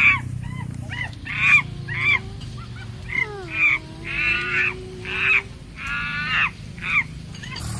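Farm animals calling: a rapid series of short, honk-like calls, about a dozen, each under half a second, over a steady low hum.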